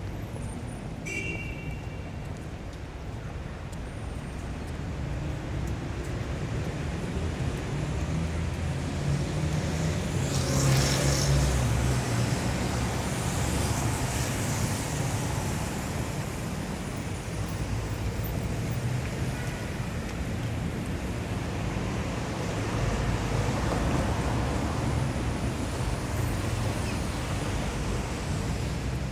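City street traffic: a continuous rumble of passing cars and heavier vehicles. One vehicle passes louder and closer about ten seconds in, and a brief high squeal sounds about a second in.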